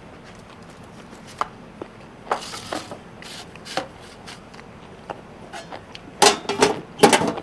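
Metal sheet pan and tongs clattering and scraping as the pan is slid back into a charcoal pizza oven. A series of light clicks and scrapes, with the loudest clatters near the end.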